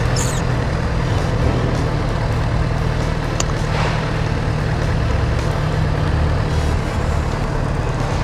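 Yamaha FZ6R's 600cc inline-four engine running at low speed as the bike rolls through city traffic, a steady low hum under road and traffic noise. A brief high chirp comes just after the start and a sharp click about three and a half seconds in.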